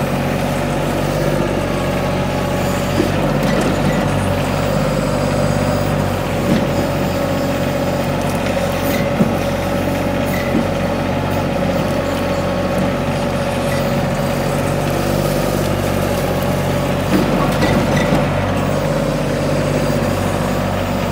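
Kymron XH26D mini excavator's diesel engine running steadily under digging load, with a steady whine over it. A few small knocks and crackles come through as the bucket works root-filled ground.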